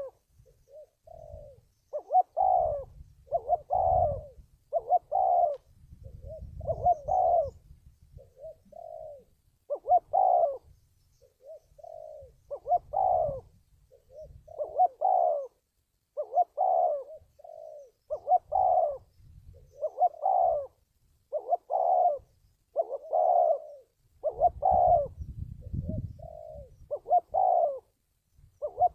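Spotted dove cooing: short, repeated coo notes coming about once a second in a steady series, with an on-and-off low rumble underneath.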